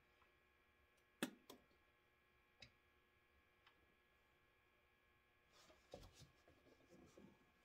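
Near silence with a few faint, sharp clicks, the clearest about a second in, then soft rustling of small parts being handled in the last couple of seconds.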